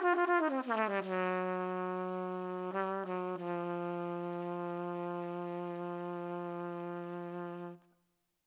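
Trumpet playing a falling run into a long, steady low held note that is re-tongued briefly about three seconds in and cut off just before the end. Heard clean through the microphone with plate reverb added.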